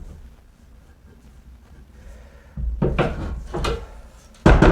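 Knocks and rubbing of hard objects being handled, after a short quiet spell, ending with a loud sharp knock.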